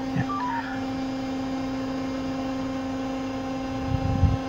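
Steady machinery hum at one even pitch from a ship's deck crane running, heard inside the operator's cab. A few short faint beeps come about half a second in, and low knocks come near the end.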